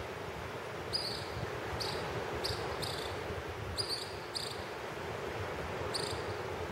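Steady wash of small waves breaking on a sandy beach, with some wind on the microphone. Short, high chirps come singly or in pairs every second or so.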